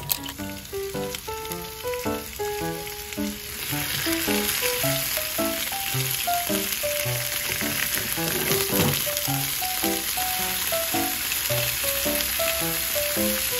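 Leafy greens sizzling in an oiled nonstick frying pan while being stirred with a silicone spatula. The sizzle grows much stronger about three and a half seconds in and then runs steadily.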